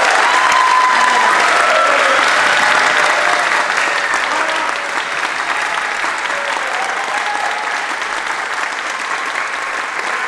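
Audience applauding at the end of a song, with some shouting voices over it in the first few seconds; the clapping eases a little after about four seconds and carries on.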